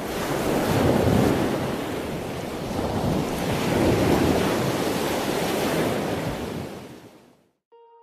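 Ocean surf: waves washing in with two slow swells, about a second and about four seconds in, fading out near the end as soft music begins.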